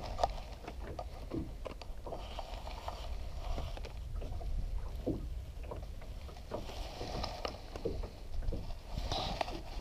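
Water slapping against a small boat's hull, with wind rumbling on the microphone and a few faint knocks from handling in the boat.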